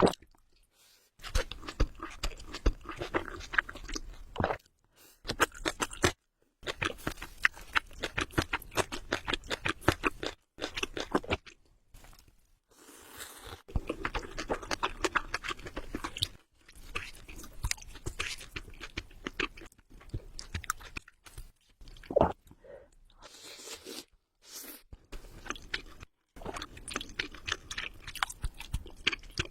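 Close-miked chewing of spicy ramen noodles: rapid wet clicks and smacks, broken by several short pauses.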